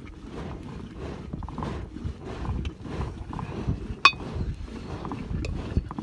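Irregular crackling and rustling from an open wood fire while a woolly sheep's head is handled beside it, with one sharp metallic clink about four seconds in.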